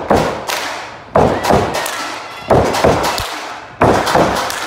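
Four heavy thuds at an even pace, about one every second and a quarter, each dying away slowly.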